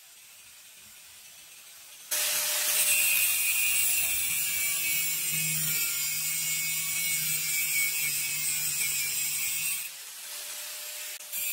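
Angle grinder's disc grinding against the end of a steel square tube: a loud steady hiss and whine starting about two seconds in and lasting about eight seconds before it drops away.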